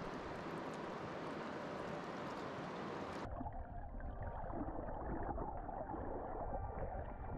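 Rushing river water, then about three seconds in the sound turns abruptly dull and muffled as the microphone goes under water, leaving a low burbling and rumble of the current.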